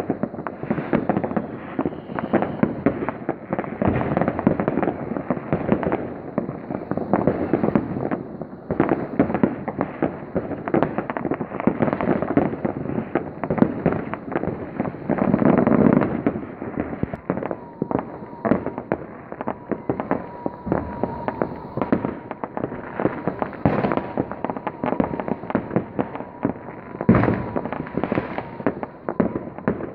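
Many fireworks going off without pause: a dense crackle of firecrackers mixed with the bangs of bursting rockets. The bangs are loudest about halfway through, and one sharp single bang comes near the end. A faint steady high tone runs through the second half.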